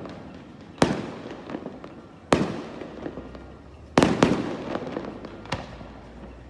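Fireworks display: aerial shells bursting in a series of loud bangs a second or two apart, two of them almost together about four seconds in, each bang trailing off in an echoing tail.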